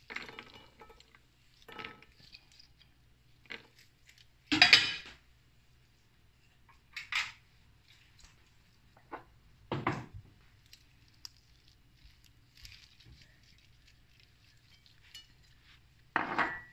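Kitchen dishes and metal utensils being handled, clinking and clattering in separate short knocks every second or two. The loudest clatter comes just under five seconds in, with another near the end.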